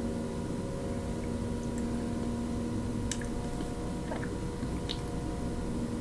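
Soft wet mouth sounds of someone eating yogurt, over a steady electrical hum, with a few faint clicks around the middle.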